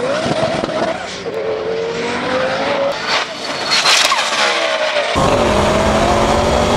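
Twin-turbo V10 of a Lamborghini Gallardo accelerating hard, its pitch climbing and dipping at gear changes, with a crackle and falling sweep around four seconds in. About five seconds in it cuts abruptly to a louder, steadier engine note as the car pulls away down the strip.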